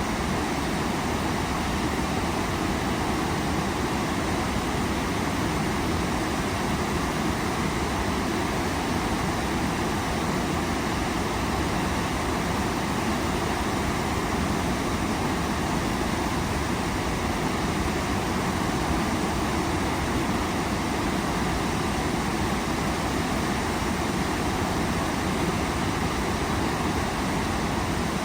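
Waterfall with water pouring down in a steady, unbroken rush.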